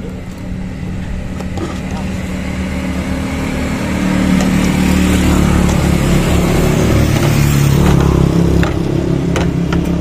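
A motor vehicle's engine running close by, a steady low hum that grows louder over several seconds and eases off near the end.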